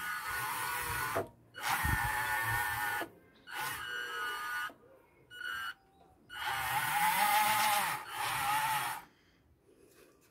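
Electric drive motors and gearing of a radio-controlled CAT 320D model excavator whirring in about six separate bursts, most of them one to two seconds long, each with a whine that wavers in pitch. The bursts follow the operator's stick movements as he tries out the tracks on a single stick.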